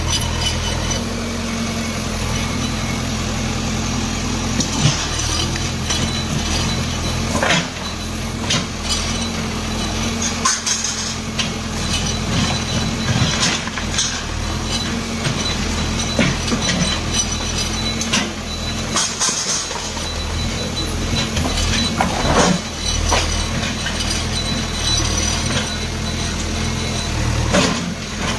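Diesel engine of a bulldozer running steadily under load, with a few sharp knocks and bangs scattered through it.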